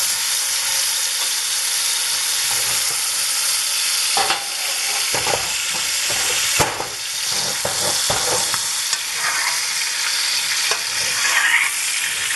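Steak sizzling in hot butter in a pan while a spoon bastes the melted butter and juices over it. The spoon clinks and scrapes against the tilted pan several times, mostly in the middle stretch.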